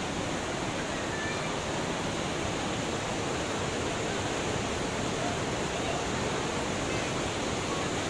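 Düden waterfall's cascade: water pouring over rocks into the pool below, a steady, unbroken rush.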